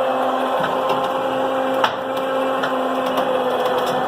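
Harbor Freight 2,000 lb electric winch running steadily under load, its motor hum winding in cable to raise a heavy swing-up door. A few light clicks and one sharper click about two seconds in.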